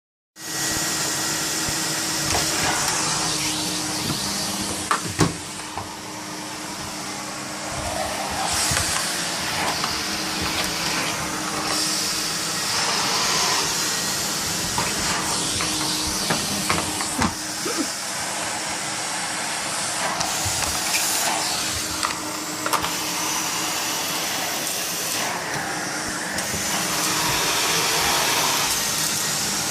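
Vacuum cleaner running steadily, its motor hum constant while the suction hiss rises and falls every few seconds. A few sharp knocks come about five seconds in and again later on.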